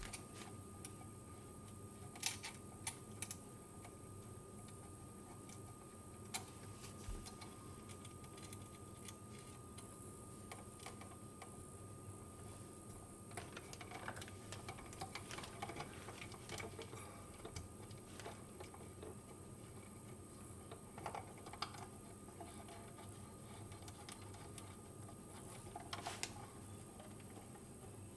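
Faint scattered clicks and light taps of small plastic and metal parts being handled at an electrical outlet as its shim spacers and receptacle are fitted, with a faint steady hum underneath.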